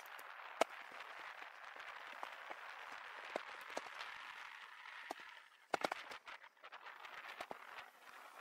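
Riding noise of bicycles rolling along a paved road: a steady hiss of tyres and moving air, with scattered clicks and rattles and a quick run of them about six seconds in.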